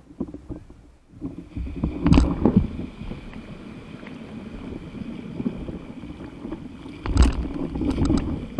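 Breaking wave's whitewater rushing and splashing around a stand-up paddle board as it rides the wave, with loud surges of splashing about two seconds in and again near the end as the rider tumbles off into the water.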